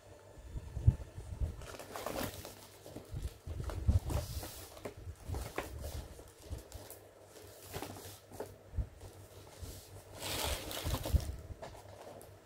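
Rustling and crinkling of a shopping bag and packaging being handled, with soft, irregular thumps as things are moved and set down on the table.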